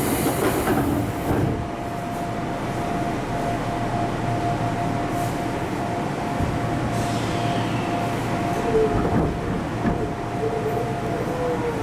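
Inside an Odakyu 8000 series field-chopper electric train car (motor car DeHa 8205), standing with its doors shut: a steady hum over the car's running noise. Wavering tones from the traction equipment come in during the second half as the train begins to pull away.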